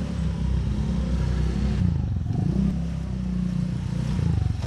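An engine running, its pitch wavering up and down with throttle.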